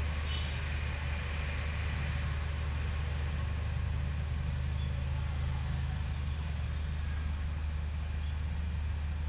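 Steady low hum of a running vehicle engine, unchanging throughout, with a light high hiss over the first couple of seconds.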